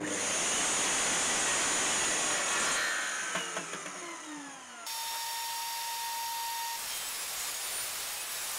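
Electric chop saw running and cutting through a pallet-wood board, then its motor spinning down with falling whines. About five seconds in it gives way abruptly to a table saw running steadily, with a steady whine that stops about two seconds later.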